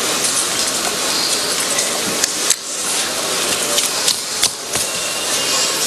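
Steady hiss of room and recording noise, with a few sharp clicks and knocks about two and a half and four and a half seconds in.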